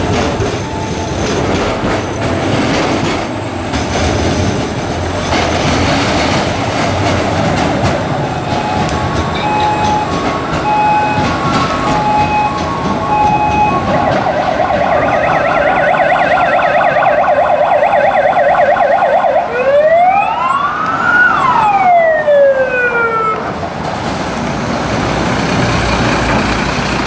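Fire engine sirens sounding together as the convoy passes: slow wails rising and falling, a rapid yelp, then one loud wail that climbs and falls about two-thirds of the way through. Heavy truck engines and city traffic run underneath.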